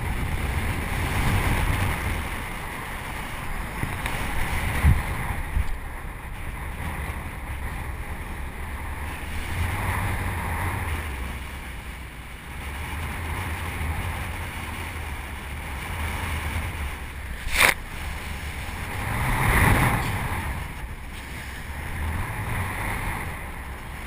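Wind buffeting the microphone and rough sea rushing past the bow of a boat running through heavy waves, rising and falling in gusts. A single sharp knock comes about three-quarters of the way through, followed shortly by a louder rush of wave and spray.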